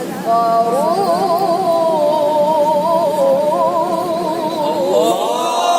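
A boy's unamplified voice in melodic Quran recitation (mujawwad tajweed), holding one long, wavering, ornamented phrase. About five seconds in, several listeners start calling out in approval over it.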